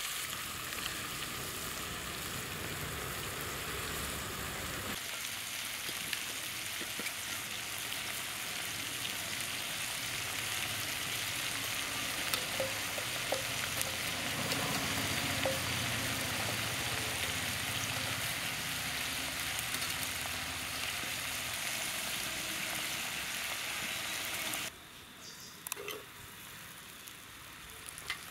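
Small shallots and chillies sizzling as they fry in oil in a clay pot, a steady sizzle that drops abruptly quieter a few seconds before the end.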